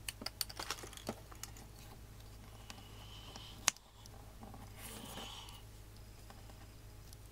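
Faint clicks and rustles of hands handling a folded plastic drinking straw and working it into a small crocheted piece: a quick run of small clicks at first, a single sharp click a little under four seconds in, and softer rustling after it.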